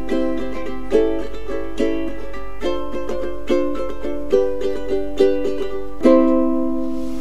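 Ukulele music: chords strummed about once a second, ending on a chord about six seconds in that is left to ring.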